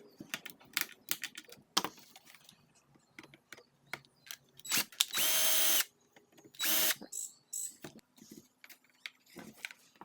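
Small electric motor whirring in two short bursts, the first just under a second long and the second about half a second, amid scattered clicks and rattles of plastic parts being handled.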